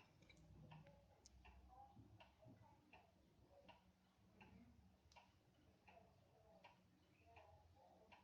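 Faint, steady ticking of an 1880s Concordia weight-driven Vienna regulator clock's escapement, a little more than one tick a second, the clock running after restoration.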